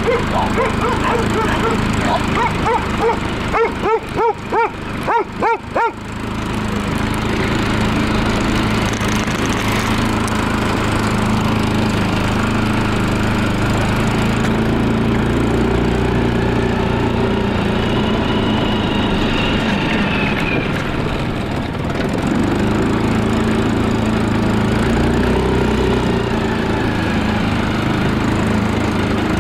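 Stels ATV 300B quad bike engine running steadily as the quad is ridden over snow. A dog barks repeatedly over the first few seconds.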